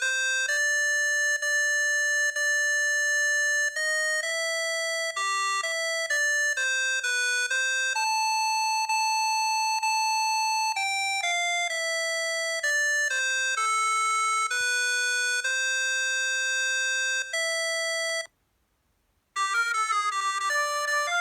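Preloaded ringtone of a Huawei G7002 mobile phone: a simple electronic melody of clear, mostly held notes. It stops about three-quarters of the way through, and after a second's silence a faster tune of short notes begins.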